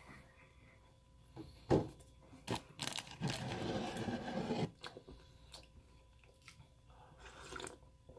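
Handling noises: a sharp knock, a lighter one, then about two seconds of crinkly rustling, the sound of a hand working at a clear plastic clamshell cookie container.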